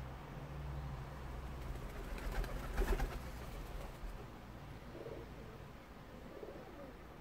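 Pigeon cooing in a few soft, low calls in the second half, after a loud burst of rustling and crackling about two to three seconds in.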